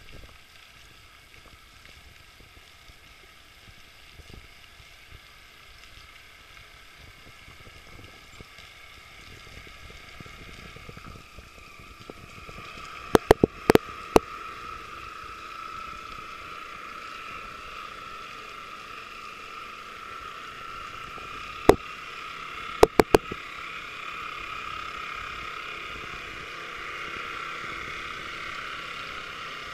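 Motor of a 1/20 scale radio-controlled model Damen Stan tug running with a steady whine that grows louder as the boat draws near. Two groups of sharp clicks cut in, one around the middle and one a few seconds later.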